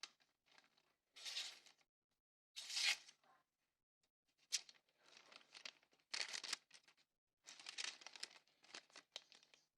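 Thin register-receipt paper being sliced by a freshly sharpened Condor Greenland pattern axe in several separate strokes, each a short papery cutting and tearing sound. This is a sharpness test of the newly honed edge.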